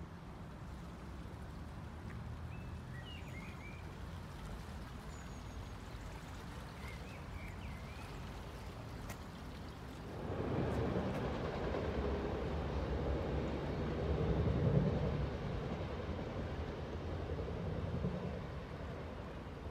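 Electric train crossing a railway viaduct: a rumble that comes in suddenly about halfway through, swells, then eases off near the end. Before it, a low steady background rumble with a few faint bird chirps.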